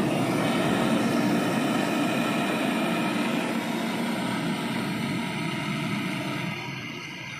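Handheld canister gas torch burning steadily while it brazes a copper pipe joint on a refrigerator compressor, easing off a little near the end.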